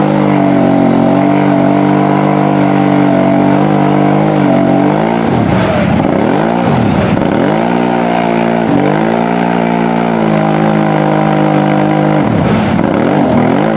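Mud ATV's engine held at high revs as it churns through deep mud and water, tyres throwing mud. The engine note stays steady for the first few seconds, then sags and climbs back about five seconds in, briefly again around nine seconds, and once more near the end.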